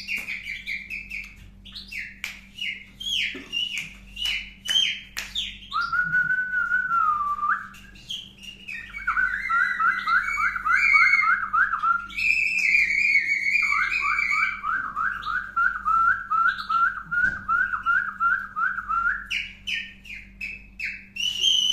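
Clear whistling: a run of short whistled notes with sharp clicks, a lower held note, then long strings of quick rising chirps at about four a second, broken by higher wavering notes.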